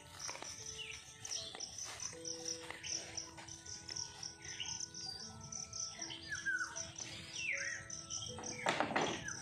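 Insects chirping in a steady fast pulse, about four a second, with birds giving short downslurred calls, over soft background music of held notes. A burst of rustling comes near the end.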